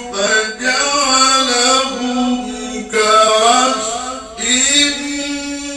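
A man reciting the Quran in a melodic, chanted style into a handheld microphone, with long held, ornamented notes and two short breaks between phrases.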